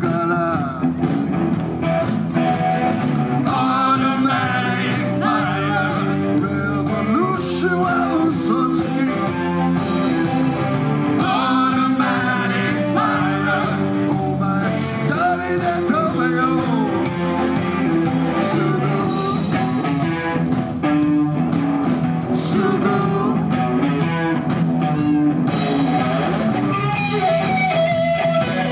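Live rock band playing: a man sings lead over electric guitar, electric bass and drums.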